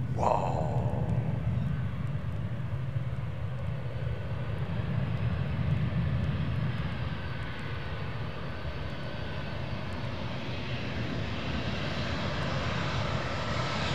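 Boeing 737 airliner on final approach, its jet engines heard as a steady low rumble with a faint whine. The sound grows louder near the end, with a rising hiss as the jet closes in.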